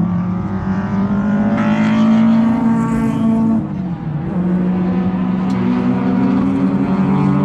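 Car engine pulling hard, its pitch climbing slowly for about three and a half seconds, then dropping sharply and pulling steadily again.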